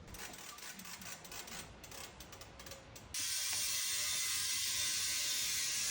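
Rapid, irregular mechanical clicking for about three seconds, then compressed air hissing steadily, starting suddenly about three seconds in, as an air line inflates the tire on the beadlock wheel.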